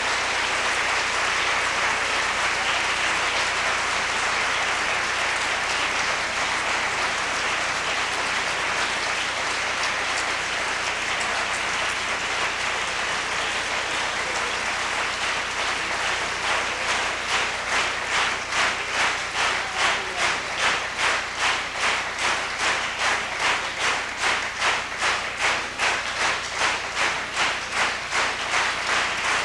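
Concert audience applauding after a piano recital: scattered applause that about halfway through turns into rhythmic clapping in unison, about two claps a second, the audience's call for the pianist to return to the empty stage.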